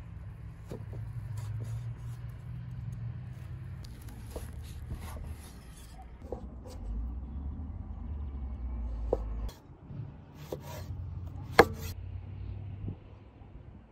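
Kitchen knife slicing through lamb tail fat on a wooden stump chopping board: scattered taps of the blade on the wood, with one sharper, louder knock near the end, over a low steady rumble.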